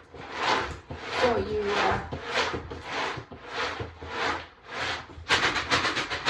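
Hardwood pellet cat litter and its sawdust being shaken in a sifting litter box: rasping swishes about two a second, turning faster and louder near the end.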